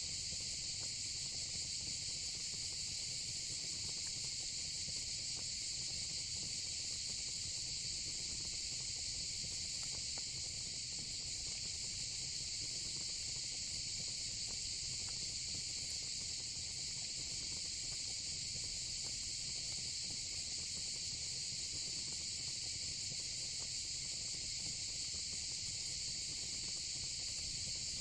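Steady, high-pitched chorus of crickets, unbroken, with a few faint crackles from a wood fire pit.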